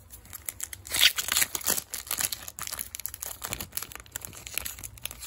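Crinkling of a foil trading-card booster-pack wrapper being handled, loudest about a second in, with a run of irregular crackles.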